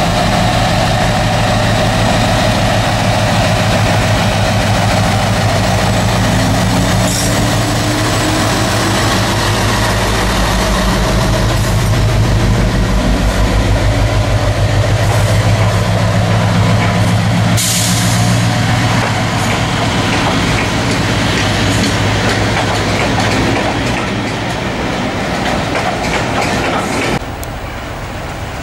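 Class 60 diesel locomotive 60046 passing slowly while hauling coaches, its Mirrlees Blackstone diesel engine running with a steady low throb that is loudest about halfway through as the locomotive goes by. Near the end the sound drops suddenly to a quieter, more distant diesel rumble.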